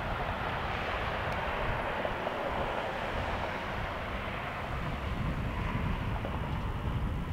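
Bombardier CRJ regional jet's rear-mounted turbofans running at taxi power: a steady jet rumble and hiss. Gusty wind buffets the microphone, stronger from about five seconds in.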